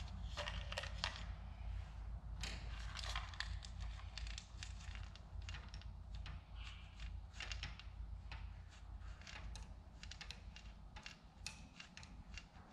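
Light, irregular clicks and rattles of powder-coated soybean seeds being tipped out of a cup and set down on a dish, over a low steady hum.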